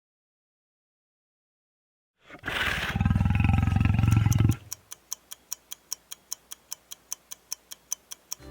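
A lion roaring once, loud and low, for about two seconds after a short silence. Then a clock ticking quickly and evenly, about five ticks a second, as a countdown.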